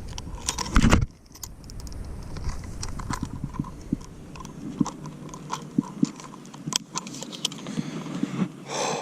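Close handling noise: irregular clicks, rattles and rustles, with a low rumble that drops away about a second in.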